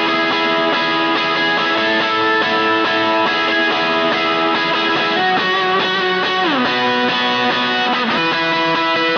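Electric guitar played on its Lambertones Crema bridge pickup, notes and chords ringing into each other with long sustain. About six seconds in, the notes glide down in pitch together.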